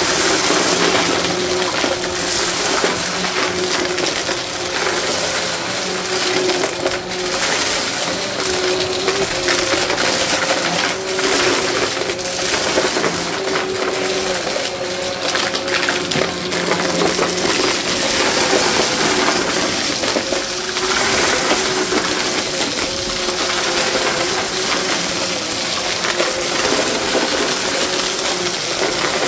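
Vacmaster bagless upright vacuum running on carpet with a steady motor tone, under a constant crunchy clatter of small hard debris being sucked up and rattling through the nozzle and into the clear dust cup.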